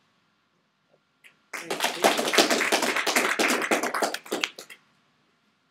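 Audience applauding: dense clapping that starts about a second and a half in, lasts about three seconds, then thins out and stops.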